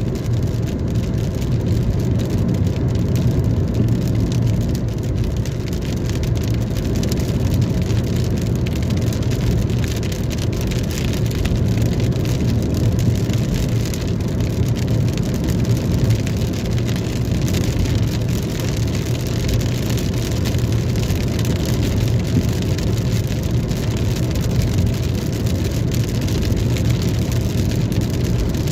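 Heavy rain falling on a car, many small drop ticks over the car's steady low hum.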